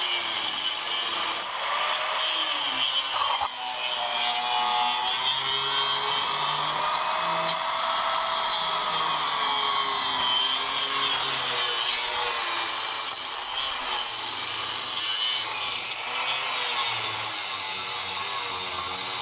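Angle grinder with a cut-off wheel cutting through a rusty steel boat-trailer beam, its whine wavering up and down with the load, easing briefly about three and a half seconds in.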